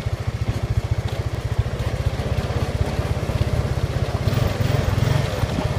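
Honda Foreman Rubicon 500 ATV's single-cylinder four-stroke engine running under way with a steady low throb. The throb swells for about a second near the end.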